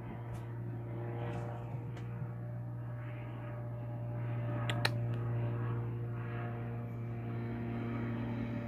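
Cat purring close to the microphone, a steady low drone that swells and fades with each breath about once a second, with one sharp click about five seconds in.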